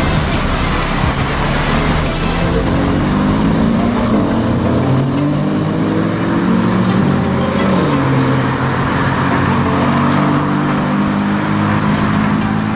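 Car engine revving in street traffic, its pitch rising and falling several times.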